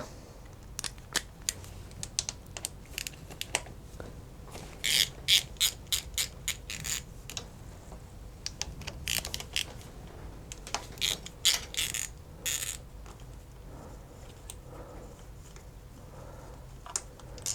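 Socket ratchet clicking in short runs as the clutch cover bolts are undone, in two spells of rapid clicking, one about five seconds in and one about nine to thirteen seconds in, with scattered single tool clicks between.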